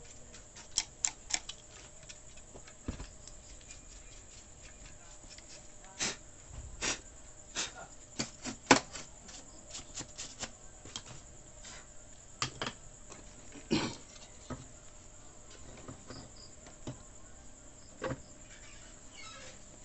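Scattered light clicks and taps as a CRT television's main circuit board is brushed clean with a paintbrush and handled, over a faint steady hum. The loudest tap comes about nine seconds in.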